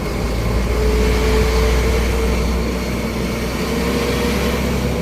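Truck engine running with a steady low rumble, and a faint whine that holds for about two seconds, drops out, then comes back briefly near the end.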